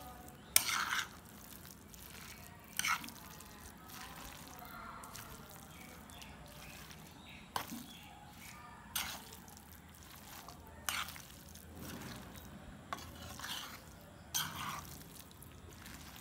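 Metal spoon mixing raw minced chicken and shredded cabbage momo filling in a metal pan: short clinks and scrapes of the spoon against the pan every second or two, over soft mixing sounds.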